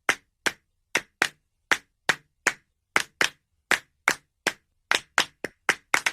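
A run of short, sharp clicks, two to three a second at an uneven pace, coming faster and closer together near the end.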